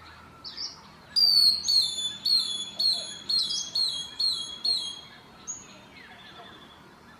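A bird singing a run of about eight quick, high repeated notes, roughly two a second. A few single high calls come before and after the run.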